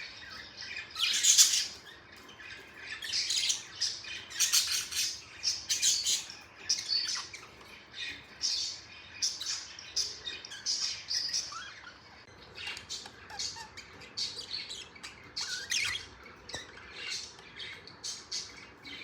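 Pet budgerigars chattering: a quick run of short squawks and chirps with brief pauses between them.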